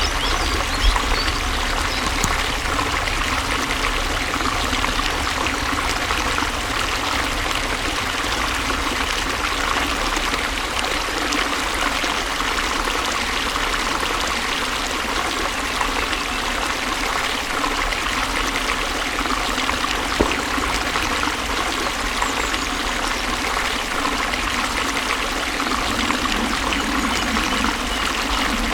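Water flowing steadily in a stream, an even splashing trickle with no breaks.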